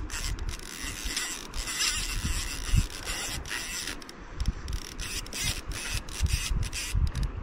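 Fly reel clicking rapidly and unevenly, its click-and-pawl drag ratcheting as a hooked fish fights on the line, over steady low background noise.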